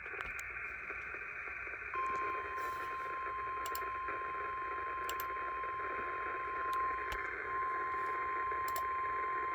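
NOAA Weather Radio 1050 Hz warning alarm tone: one steady high tone starting about two seconds in, over radio static with scattered clicks. It signals that a warning message is about to be read.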